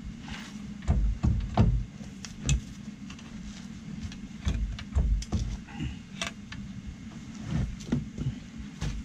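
Irregular metal clunks and knocks from a Ford Ranger's front suspension as the lower control arm and its ball joint are wrestled by hand out of the steering knuckle, over a low steady hum.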